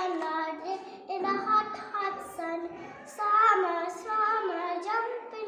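A young girl singing a song solo, holding notes that step up and down in pitch, phrase after phrase.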